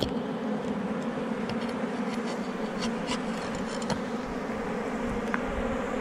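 Honeybees buzzing steadily around a comb nest being cut open, with a few light clicks as the knife works at the comb.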